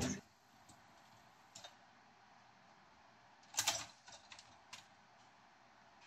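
Faint clicks and a brief rattle from an LG dishwasher's upper dish rack being pulled out on its rails, the loudest rattle a little past halfway, then a few light ticks.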